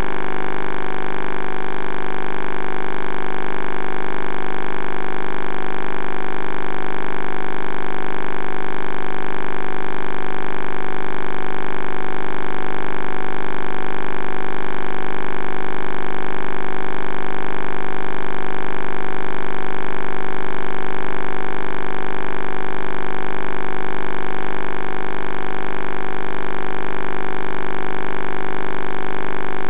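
Steady electrical hum and buzz of many fixed tones, unchanging throughout.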